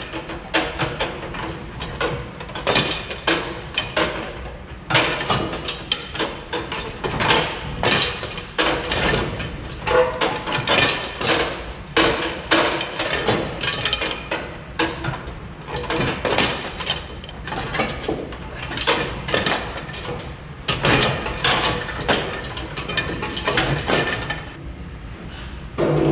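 Irregular metallic knocks and clanks from hand work on a combine's feeder house.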